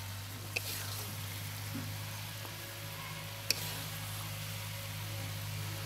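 A metal spatula knocking twice against the cookware as cooked chicken bhuna is dished out of a kadai onto a plate, the second knock the louder, over a steady low hum and a faint hiss.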